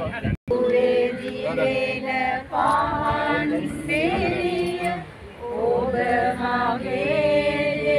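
A group of voices singing together without instruments, a slow melodic song typical of funeral singing. The sound cuts out completely for a moment just after the start.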